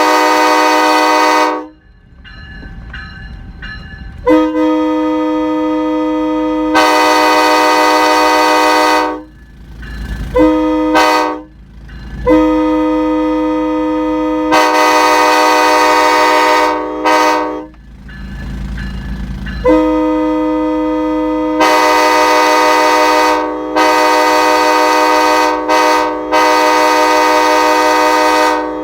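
Truck-mounted multi-chime locomotive air horns sounding a series of long blasts and a few short toots, the chord growing fuller partway through several of the long blasts.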